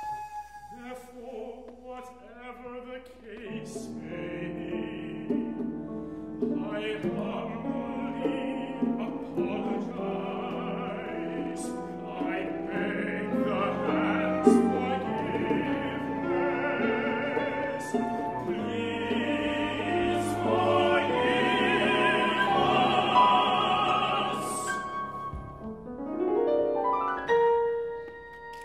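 Chamber opera sung live: an operatic male voice over a small ensemble of strings, winds and piano, punctuated by sharp percussive accents. Near the end a quick rising run of notes leads into a held note.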